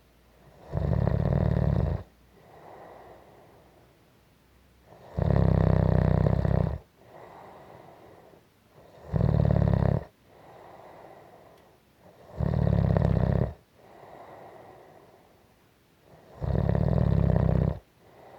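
Snoring in a slow, even rhythm: five loud, low, buzzing snores about four seconds apart, with a much softer breath between each.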